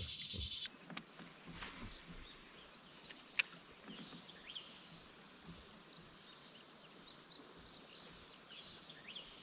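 Faint outdoor background with birds chirping here and there. There is a brief hiss at the very start and one sharp click about three seconds in.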